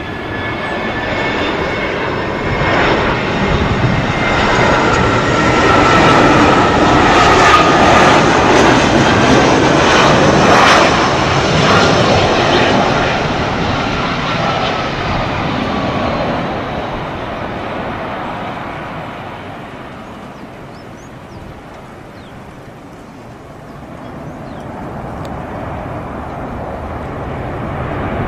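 Jet airliner's engines during a landing: a rushing engine noise with a faint whine that swells to its loudest about a third of the way in, then dies away, and rises a little again near the end.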